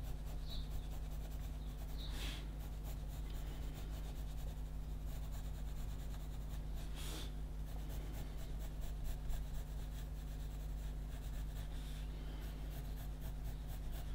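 Pencil scratching on paper in short shading strokes, with a couple of brief louder strokes, over a steady low hum.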